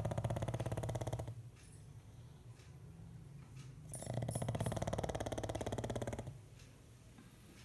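A sleeping pet snoring like a person: a rough, fluttering snore that ends about a second in, quiet breathing, then a second snore from about four seconds in that lasts about two seconds.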